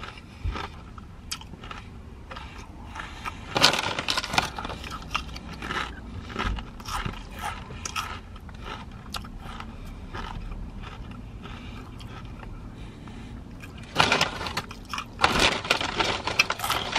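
Potato crisps being crunched and chewed with the mouth close to the microphone, in many irregular crackles. The foil-lined crisp packet crinkles in louder bursts about four seconds in and again near the end.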